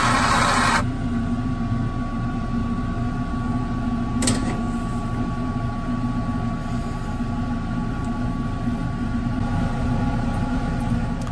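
Gas torch flame hissing loudly on the crucible, cut off sharply just under a second in. After it a steady low mechanical hum with a faint thin whine carries on, with a single click about four seconds in.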